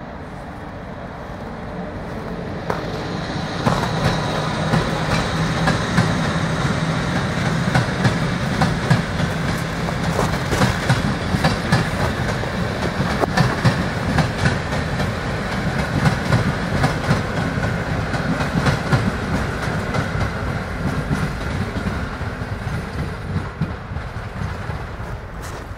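Voith Maxima diesel locomotive 264 002-7 hauling a train of ballast wagons, its diesel engine running steadily under load as it approaches, with wheels clacking over rail joints. The sound grows over the first few seconds and eases a little near the end.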